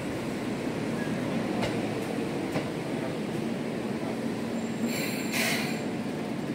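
Seibu 2000 series electric train rolling slowly along the platform, with a steady low rumble, a few faint clicks from the wheels, and a brief high-pitched hiss and squeal about five seconds in.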